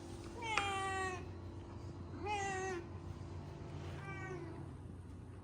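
Domestic cat meowing three times, about two seconds apart, each meow falling slightly in pitch. The first is the longest and loudest, and the last is short and faint. A steady low hum runs underneath.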